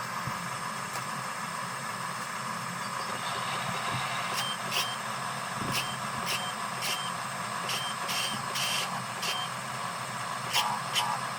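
The small electric motors and gearing of a radio-controlled construction model running steadily. From about four seconds in there is a series of short sharp clicks, several with a brief high beep-like tone.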